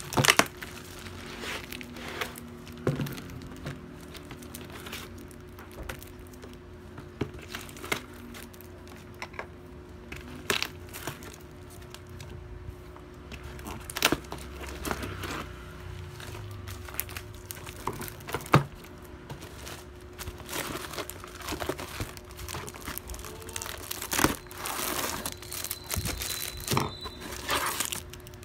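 Plastic bubble wrap crinkling and rustling as it is handled and pulled off a package, with sharp crackles scattered throughout, busier and louder in the last several seconds.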